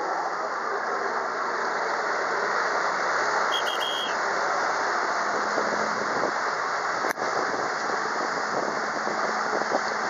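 Jet ski engine running hard to drive a flyboard, mixed with the rushing hiss of its water jets: a steady, dense noise with a momentary dropout about seven seconds in.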